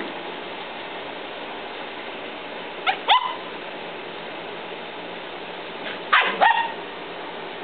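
Seven-week-old poodle puppies giving short high yips during play: a pair about three seconds in, then a quick run of three about six seconds in.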